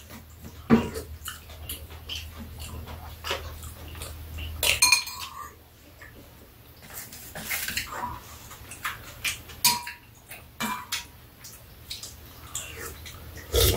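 Metal spoons and chopsticks clinking and tapping irregularly against ceramic bowls and a metal tray as two people eat.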